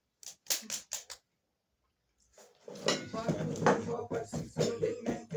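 A few quick clinks of cutlery against dishes in the first second, then after a short gap a continuous din of voices.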